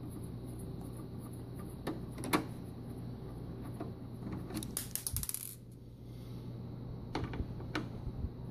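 Small metal clicks and clinks of a screwdriver working the mounting screws out of a laser printer's formatter board against its sheet-metal chassis, with a quick run of clinks about five seconds in. A steady low hum runs underneath.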